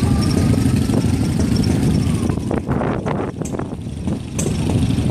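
Motorcycle engines idling, a steady low rumble, with a few short sharper sounds over it about halfway through.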